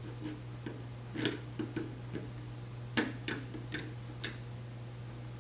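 Irregular light clicks and taps of small hardware being handled as a nut is fitted and the connector assembly pushed into place, the sharpest about three seconds in, over a steady low hum.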